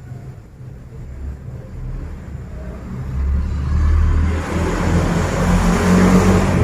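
A motor vehicle's engine rumble that grows steadily louder over the first few seconds and stays loud, as a vehicle comes close by.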